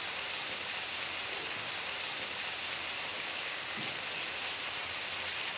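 Cheese dakgalbi (spicy chicken, cabbage and rice cakes) sizzling steadily in a tabletop griddle pan as it cooks.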